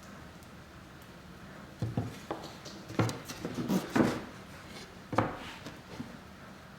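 Wooden casing pieces and clamps being handled: a string of knocks and short clatters, loudest about three and four seconds in, with a single knock about five seconds in.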